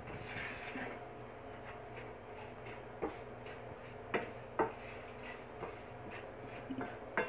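Wooden spatula stirring and scraping semolina as it roasts in ghee in a nonstick frying pan, with a few sharp taps of the spatula against the pan. A faint steady hum lies underneath.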